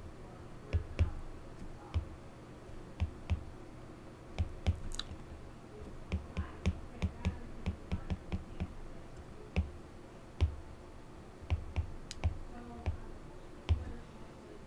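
Stylus tapping and clicking on a tablet's glass screen during handwriting: quiet, irregular light clicks, each with a dull knock, sometimes in quick runs of several a second.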